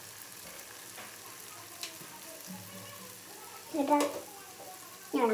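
Balls of snack dough deep-frying in hot oil in a metal kadai: a steady, quiet sizzle. A person's voice cuts in briefly and louder about four seconds in and again at the very end.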